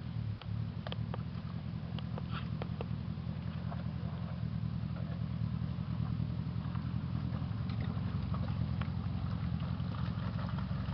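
4x4 engine running steadily at a low idle, with a few light clicks.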